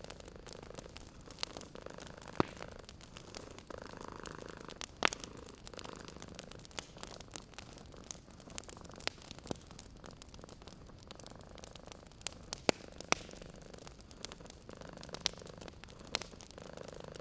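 Wood fire crackling, with sharp pops every second or two, over a cat's soft purring that swells and fades.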